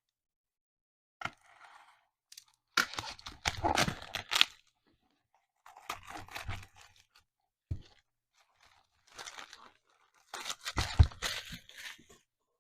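Packaging on a box of trading card packs being torn open by hand: crinkly tearing and crunching in about six bursts, with a sharp knock in the middle.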